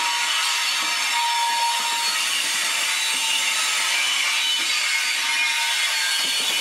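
Loaded HXA coal hopper wagons rolling past at close range: a steady grinding noise of steel wheels on rail, with thin high-pitched wheel squeals coming and going.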